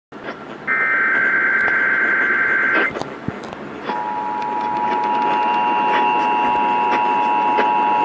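AM clock radio playing an Emergency Alert System required monthly test over static. A buzzy SAME header data burst lasts about two seconds. About a second after it stops, the steady two-tone EAS attention signal starts and holds.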